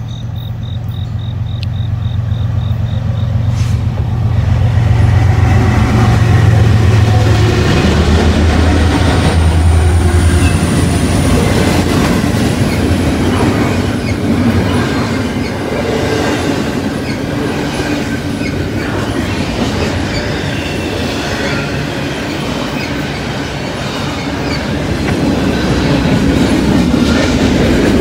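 Norfolk Southern diesel locomotives run past, their engines giving a low, steady hum that grows louder over the first few seconds. Double-stack intermodal well cars follow, rolling by with continuous wheel-on-rail noise and some wheel squeal.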